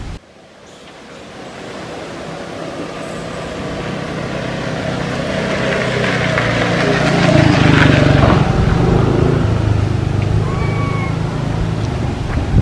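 A motor vehicle's engine and tyres approaching, passing loudest about eight seconds in, then fading a little as it goes by.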